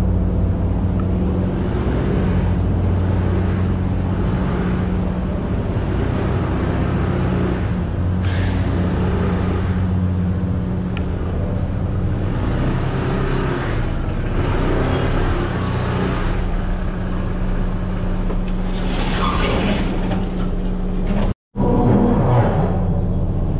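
Steady low engine drone filling a ferry's enclosed steel car deck, from the ship's running machinery and the Honda ADV160 scooter creeping at walking pace to its parking spot. The sound cuts out for a moment near the end.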